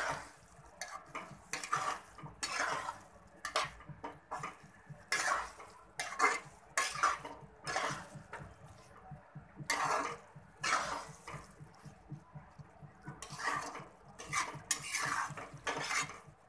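Metal spatula scraping and knocking against a metal pan as fried okra is stirred into a thick masala gravy. The strokes come over and over, about one or two a second.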